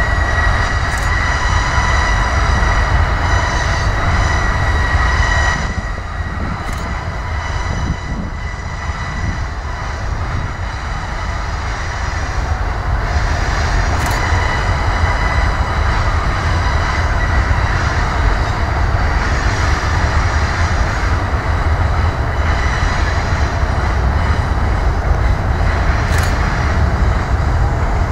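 Freight train rolling slowly with a low rumble and a steady high-pitched squeal from the wheels on curved track. The squeal weakens about six seconds in and comes back strongly a few seconds later.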